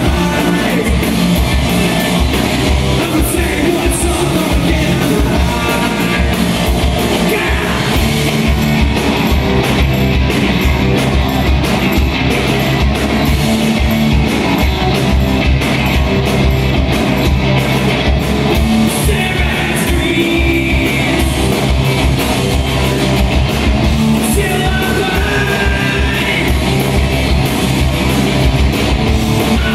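Live rock band playing: distorted electric guitars and a drum kit with a sung lead vocal, loud and continuous.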